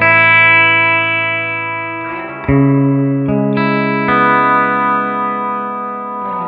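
Electric guitar chords from a Gibson SG '61 reissue played through a New Vintage Amplifiers Ægean 20 tube combo and its Weber speaker, at a medium setting with the reverb dwell and level up. Four chords are struck, the first at the start and the others about two and a half, three and a quarter and four seconds in, each left to ring and fade with a reverb tail.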